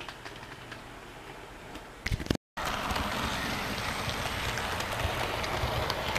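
HO-scale model of steam locomotive ET&WNC No. 12 running close past on the track: a steady mechanical running noise with many small clicks of wheels on rail. Before it, about two seconds in, there are a couple of knocks and a sudden cut, after which the sound is much louder.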